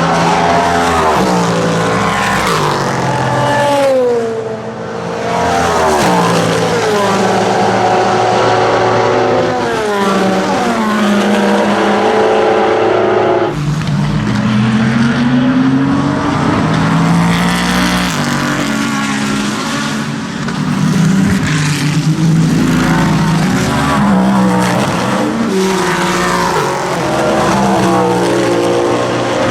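Cadillac V-Series.R GTP prototype's naturally aspirated V8 racing engine at high revs. Its pitch drops in steps several times through the first half, then climbs sharply about halfway through and keeps rising and falling with the gear changes.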